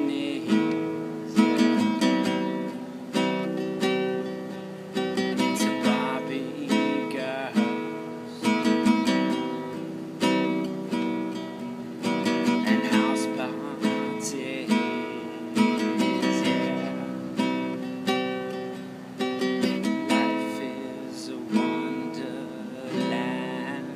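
Nylon-string classical guitar playing chords, each struck with a sharp attack and left to ring and fade before the next.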